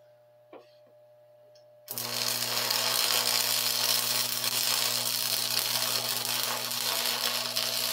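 AC stick-welding arc from a Forney buzz-box welder burning a 6011 rod at about 60 amps: a steady, loud crackling hiss with a hum under it, starting about two seconds in after a few faint ticks. It is a butter pass filling a hole in an exhaust manifold.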